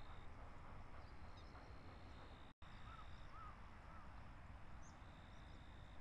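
Faint open-field ambience with a low rumble and thin high tones coming and going. After a momentary dropout about halfway through, a bird gives three faint short calls in quick succession.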